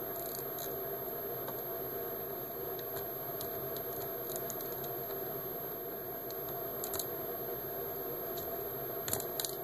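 Steady background hum with a few light clicks and ticks scattered through it, from small screws and a screwdriver being handled on a laptop screen assembly.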